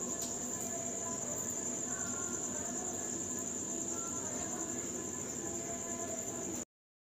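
A continuous high-pitched pulsing trill at one steady pitch, with faint softer tones beneath it; all sound cuts off abruptly near the end.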